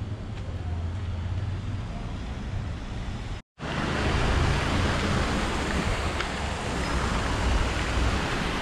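Steady outdoor background noise: a low rumble, then after a brief cut about three and a half seconds in, a louder even rushing hiss like wind or distant traffic.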